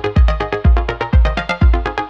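Electronic background music with a deep kick drum beating about twice a second under synth notes.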